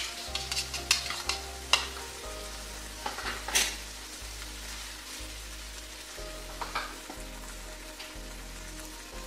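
Chicken pieces and shimeji mushrooms sizzling in a nonstick frying pan as tomato sauce is stirred in, with a utensil scraping the pan in quick strokes over the first couple of seconds and again about three and a half seconds in.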